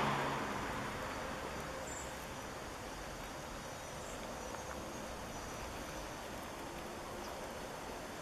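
Steady outdoor background noise that eases slightly after the start, with two faint, short, high chirps about two and four seconds in.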